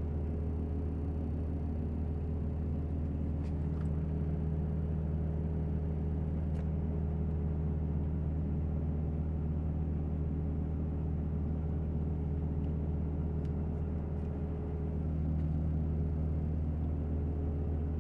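Steady low hum with a few faint, irregular clicks scattered through it: a puppy cube toy clicking while it tries to charge and fails to power on.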